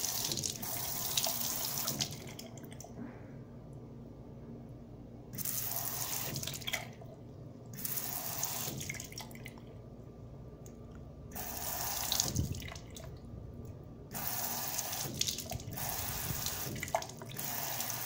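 Bathroom sink faucet running, its stream splashing over an iPhone 7 held under it. The splash swells louder and brighter for stretches of one to several seconds and falls back between, as the phone is moved about under the stream.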